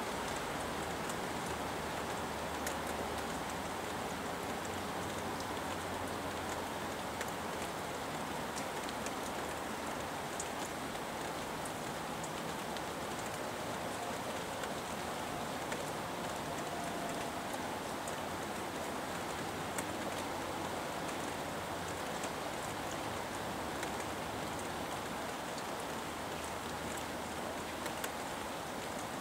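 Steady rainfall: an even hiss with scattered sharp ticks of single drops striking.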